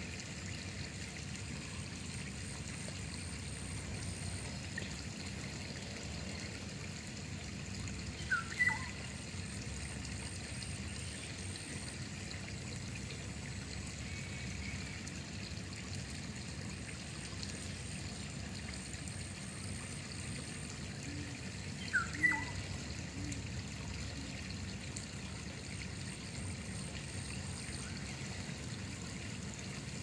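Running water in a canal, trickling and pouring steadily. Two brief chirps stand out above it, one about eight seconds in and another about twenty-two seconds in.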